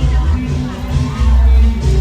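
Loud amplified music with a heavy, pulsing bass beat.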